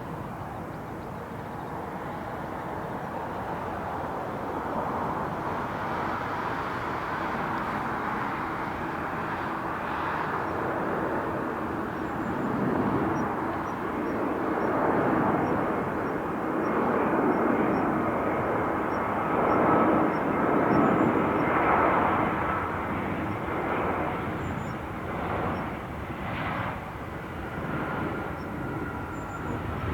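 Jet airliner engines passing, a broad steady rush that builds to a peak about two-thirds of the way through and then eases slightly.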